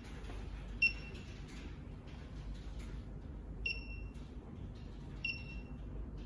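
Three short, high electronic key-press beeps from a syringe pump's touch screen as its menu is tapped, spaced a second or two apart.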